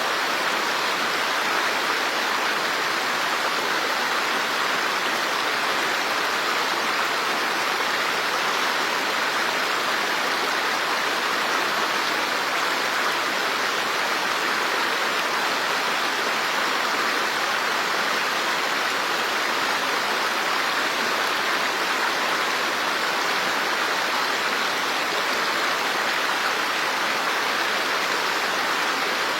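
Steady rushing water, an even unbroken hiss with no separate splashes or drops standing out.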